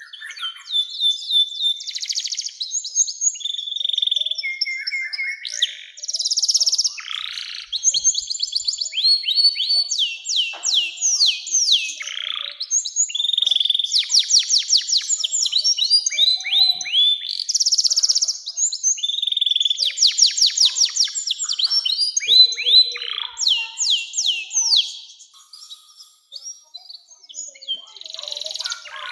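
Domestic canary singing a long, loud song of fast trills, rolls and sweeping notes, with a short break near the end before it starts again.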